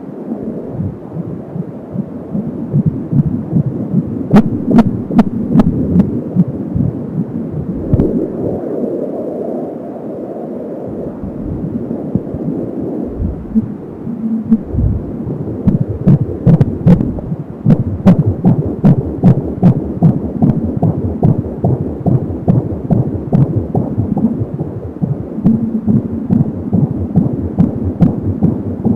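Fetal heartbeat picked up by an Angelsound handheld fetal Doppler at 30 weeks: a fast, even throbbing of about 170 beats a minute, with the whooshing of blood flow in the umbilical cord. For a few seconds in the middle the beats fade into a smoother whoosh, and a few sharp clicks come from the probe.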